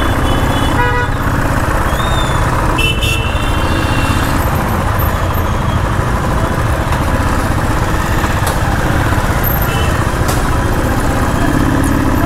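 A motorcycle riding through busy street traffic: a steady low rumble throughout, with short vehicle horn honks several times, about a second in, around three seconds and near ten seconds.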